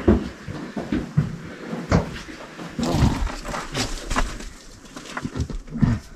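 Loose rock rubble crunching and clattering in irregular knocks as someone crawls through a low gap over it, with a few short grunts of effort.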